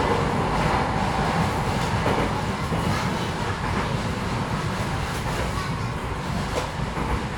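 Metro train running through a tunnel, heard from inside the car: a steady rumble of wheels on rails with a few faint clicks from the track. It gets gradually a little quieter.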